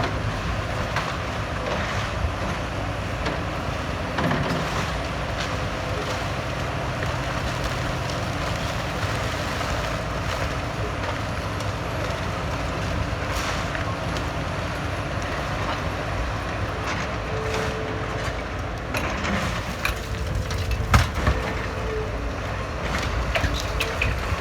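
Heavy demolition machinery running steadily, with scattered knocks and crunches of debris and one loud crash about 21 seconds in.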